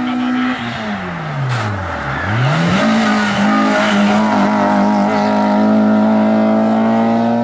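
Race car engine on a hillclimb course: its note falls away steeply over about two seconds as the car slows, then climbs again as it accelerates, and holds a high, steady pitch.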